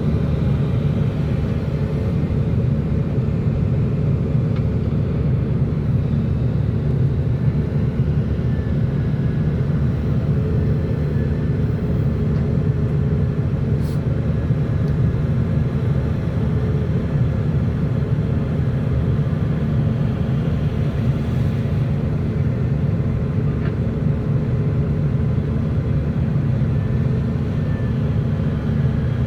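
Heavy engine running steadily, a continuous low rumble with no change in pace.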